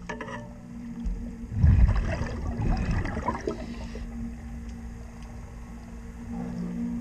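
Underwater sound at a boat's hull: a steady low hum, with bursts of low, gurgling rumble from about one and a half to three and a half seconds in.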